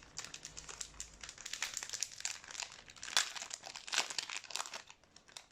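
Crinkling of a foil trading-card pack wrapper, handled and torn open: a dense run of irregular crackles.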